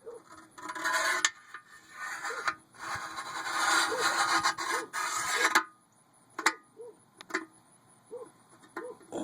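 Bursts of close rubbing and scraping, three stretches in the first five and a half seconds, the longest in the middle, then a few light clicks and short faint squeaks.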